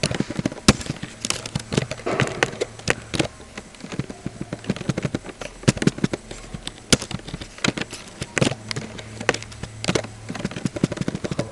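Computer keyboard typing: quick, irregular key clicks, some keys struck harder than others.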